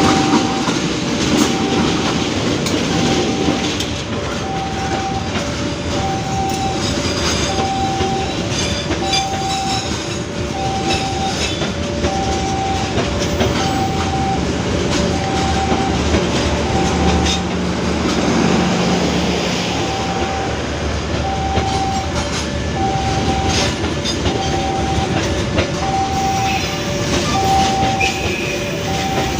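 A train running on the rails with steady clattering noise, while a two-pitch tone repeats about once a second throughout. A low steady tone sounds for several seconds in the middle.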